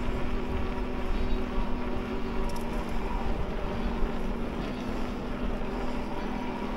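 Electric mountain bike being ridden along a road: a steady hum from the bike's drive under a rumble of wind on the microphone.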